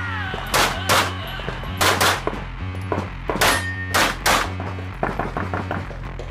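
Handgun shots fired in a rapid string during a practical-shooting stage, several in quick pairs, with fainter quick shots near the end. Background music with a steady bass line runs underneath.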